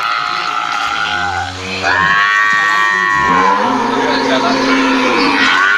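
Cattle mooing: long, drawn-out calls, some high-pitched and some low, following and overlapping one another.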